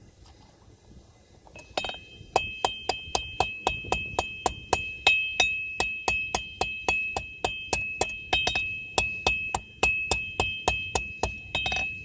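Blacksmith's hammer tapping hot steel on an anvil in fast, light planishing blows, about four strikes a second, each leaving the anvil ringing at a steady high pitch. The tapping starts about two seconds in, after a short scrape.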